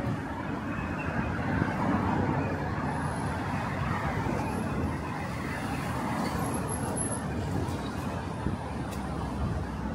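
Steady traffic noise from a busy main road, cars, buses and lorries passing.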